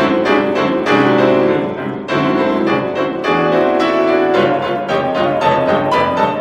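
Piano accompaniment playing the introduction of a choral song: a flowing run of struck notes and chords, with no voices yet.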